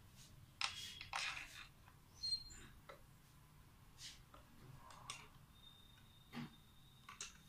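Light clicks and scrapes from hands handling a small water-purifier pump motor, fitting its metal casing and end cap together. There are about half a dozen short, separate clicks, the loudest in the first two and a half seconds.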